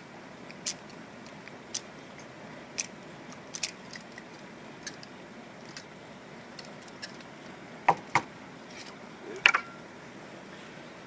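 Metal ramrod ticking and clicking in the barrel of a .45 caliber percussion muzzleloader as the bullet is rammed down onto the black-powder charge, light clicks about once a second. Near the end come two louder knocks and a sharper clack with a brief ring as the loaded gun is handled.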